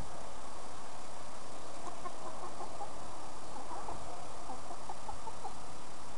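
Young chickens clucking in short notes, a quick run of them starting about two seconds in, over a steady hiss.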